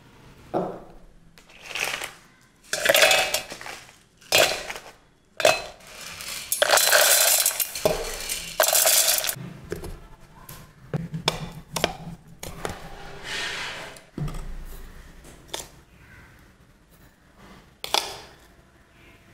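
Dry roasted lentils and dried red chillies rattling hard inside a steel mixer-grinder jar in a series of short, loud bursts and one longer burst, as they are ground into idli podi. After that come lighter, scattered clinks of metal on steel.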